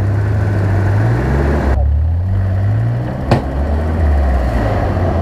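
Off-road 4x4's engine running at a low rumble, its revs rising twice, with a single sharp knock a little after three seconds in.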